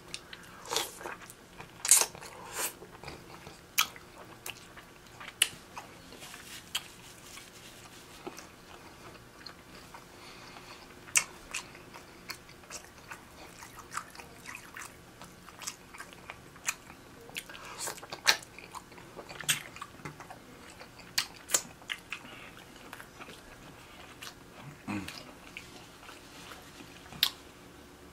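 Close-up eating sounds: seafood being bitten and chewed, with wet mouth smacks and scattered sharp clicks and crunches.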